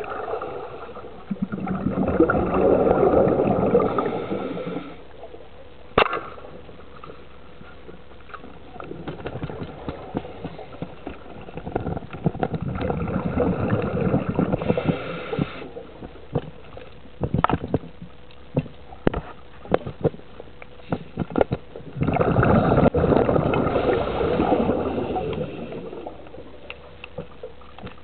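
Scuba diver's exhaled bubbles gurgling out of the regulator underwater in three long swells, each a few seconds long and roughly ten seconds apart. Sharp clicks and ticks come in between, with a faint steady hum underneath.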